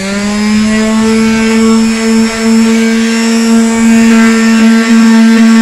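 Black & Decker electric palm sander switched on and winding up to speed, a rising whine settling within the first half second into a loud, steady motor hum as its pad, fitted with dull sandpaper, is held against a car's painted steel body panel.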